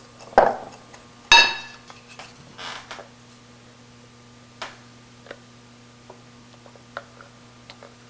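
A metal wire whisk knocking twice against a ceramic mixing bowl in the first second and a half, the second knock ringing. A few faint clinks and taps follow, with a faint steady hum underneath.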